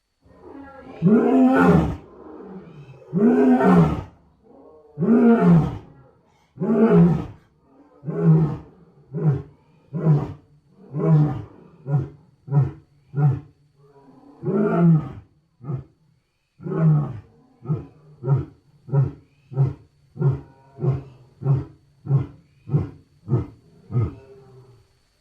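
Lion roaring bout: four long, full roars in the first seven seconds, then a long series of shorter grunting roars about one a second that grow shorter and quicker toward the end.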